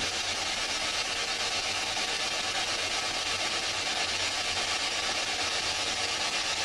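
Steady hiss of static from a ghost box, a radio scanning rapidly through stations.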